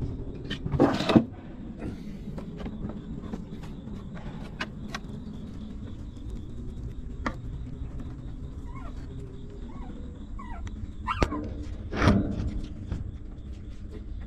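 Newborn puppies whimpering faintly, a few short squeaks that waver up and down in the middle, amid scattered clicks. Two louder rustling bumps come about a second in and again near the end.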